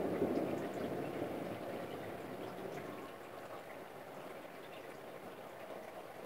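Steady rain falling during a thunderstorm, with the low rumble of thunder fading away over the first few seconds.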